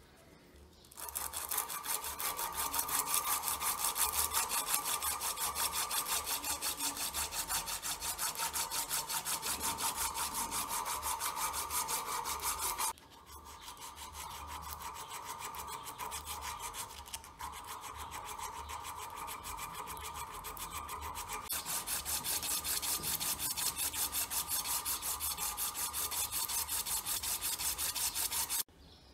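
A strip of abrasive cloth is pulled rapidly back and forth around a small metal pin clamped in a vise, shoe-shine style, making a fast, even rasping rhythm. It starts about a second in, goes softer for a stretch in the middle, picks up again, and stops abruptly near the end.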